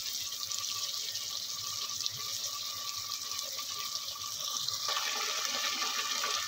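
Chopped onions and ginger-garlic paste frying in a pan of hot oil: a steady sizzling hiss with fine crackle, growing a little fuller about five seconds in.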